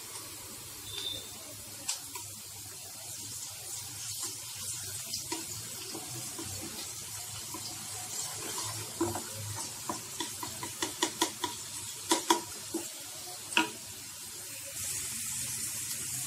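Chopped onions and green chillies sizzling in hot oil in a non-stick pan, stirred with a wooden spatula. Quick taps and scrapes of the spatula against the pan come in runs, thickest in the second half.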